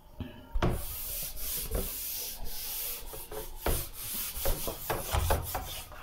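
Bare palm rubbing across a whiteboard in repeated wiping strokes, erasing marker writing, starting about half a second in.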